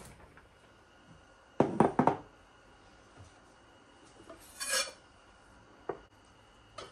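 Kitchenware being handled: a loud clatter of three or four quick knocks about one and a half seconds in, a ringing clink past the middle, and two light knocks near the end.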